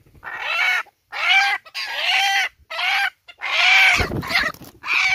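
A male red junglefowl squawking loudly in a quick string of about seven harsh calls, each rising and falling in pitch, as it is held in the hand just after being trapped. A low bump of handling sounds about four seconds in.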